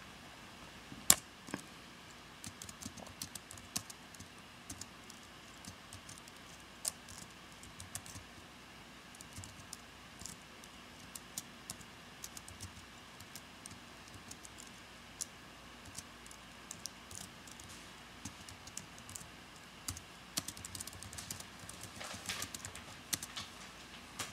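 Typing on a computer keyboard: irregular key clicks, with one sharper click about a second in and a quicker run of keystrokes near the end.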